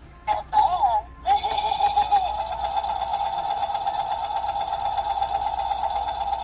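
Battery-operated skeleton sewing machine Halloween prop playing its sound effect: a few short warbling cries in the first second, then a steady whirring buzz like a sewing machine running.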